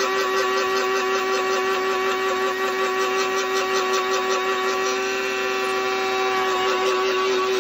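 Small electric blade spice grinder running steadily as it grinds roasted peppercorns to powder, with a rhythmic pulsing from being shaken in the hand. The pulsing eases about five seconds in and comes back near the end.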